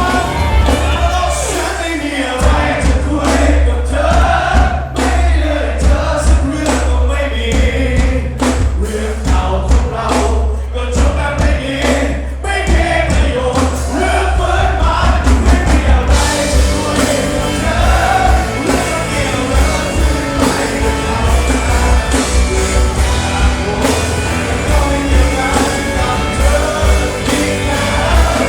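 Live band music with singing and a heavy, steady bass.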